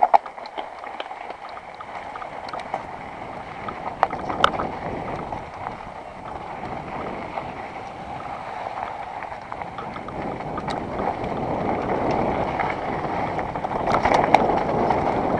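Mountain bike riding down a rocky dirt trail: steady wind rush over the helmet-mounted microphone and tyre rumble, with sharp knocks and rattles as the bike hits rocks, growing louder in the last few seconds as the speed picks up.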